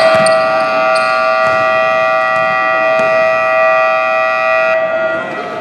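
Gym scoreboard buzzer sounding one long, loud, steady blast of several tones at once, cutting off about five seconds in. It plausibly marks the end of the quarter.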